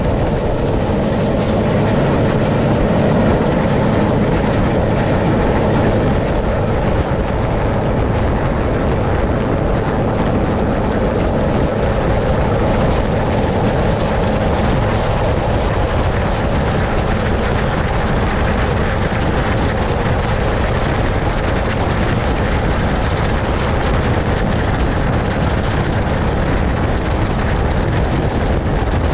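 Westland Sea King helicopter's main rotor and twin turboshaft engines running steadily, heard loud from on board.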